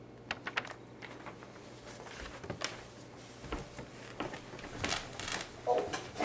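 Faint, scattered clicks, taps and rustles, irregular and at a low level, with a short pitched sound near the end.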